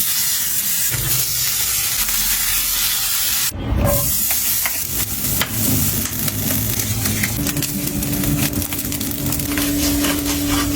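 Food frying in a hot pan: a steady sizzle, with dense crackling and popping after a cut about three and a half seconds in. A steady low tone joins about seven seconds in.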